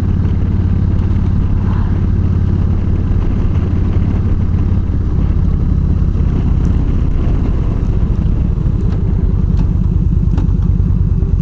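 Yamaha V-Star 1300 motorcycle's V-twin engine running steadily at cruising speed while riding down a road.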